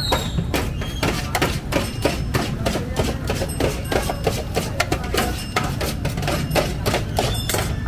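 A knife chopping meat against a large metal pan, with rapid, irregular sharp knocks and clinks of blade on metal.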